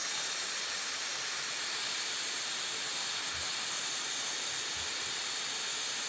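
Hairdryer blowing steadily, an even airy hiss, warming the adhesive under the charging-port flex cable to soften it for removal.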